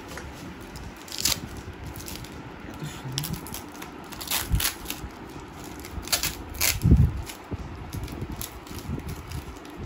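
Gift-wrapping paper crinkling and tearing as a present is unwrapped by hand, in several short rips, with a dull thump about seven seconds in.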